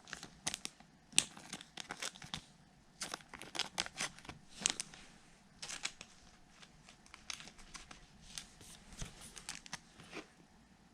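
Packs of 2021 Topps Heritage baseball cards being torn open and the cards handled: irregular crinkling and rustling of wrappers and cards, with sharper crackles about a second in and near the middle.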